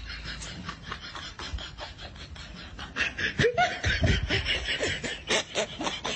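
A person laughing in quick breathy pulses, which grow louder and more voiced about three seconds in.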